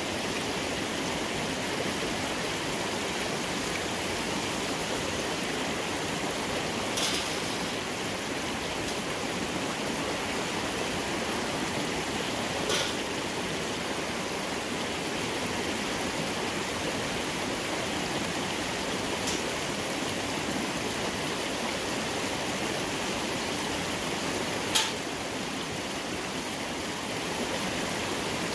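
Steady rush of a small waterfall and a shallow stream running over rocks, broken by four brief clicks, the sharpest near the end.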